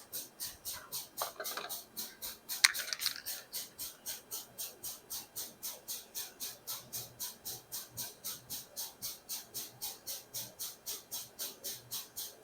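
Small hand work on wiring: a few faint handling sounds and one sharp click or snip about two and a half seconds in, over a steady high-pitched ticking about four times a second.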